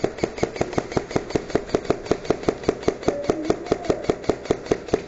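Airsoft gun firing a long, unbroken string of shots at about seven a second, each a sharp evenly spaced crack.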